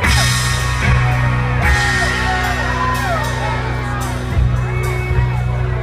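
Live rock band playing a song, with sustained bass notes and drum and cymbal hits, and whoops and yells over the music.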